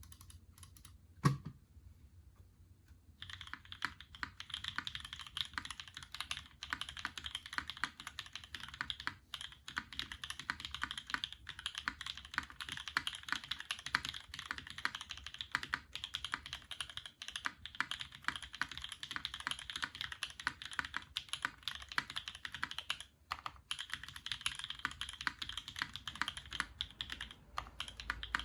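Custom mechanical keyboard (Keycult No. 1/60 with NovelKey Cream linear switches, FR4 plate and GMK keycaps) being typed on quickly and continuously. There is a single sharp knock about a second in, steady typing from about three seconds in, and a brief pause in the typing near the end.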